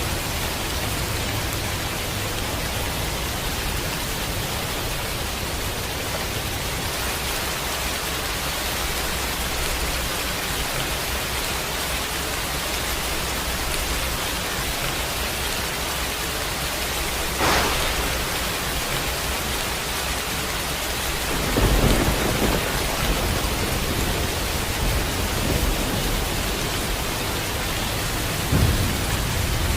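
Thunderstorm: steady rain with a sharp thunder crack past the middle, followed by low rolling thunder, and another short rumble near the end.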